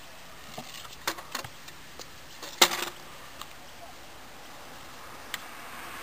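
A few scattered sharp clacks of stunt scooters knocking on concrete. The loudest comes about two and a half seconds in, with a short ring after it.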